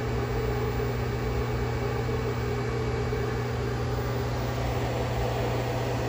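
Commercial Chef 600-watt microwave oven running at full power: a steady low hum with an even whir that does not change.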